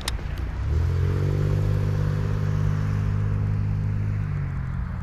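Norfolk Southern freight locomotive's horn sounding one steady, multi-note blast of about four seconds, starting just under a second in.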